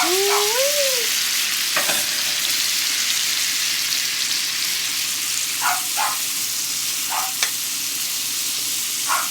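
Sliced zucchini sizzling in melted butter in a hot cast iron skillet, a steady frying hiss, with a few short scrapes of a utensil against the pan.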